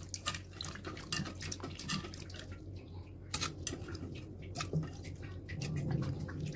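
Chopped potato and pumpkin pieces dropping into rice, lentils and water, heard as a run of irregular small plops and clicks.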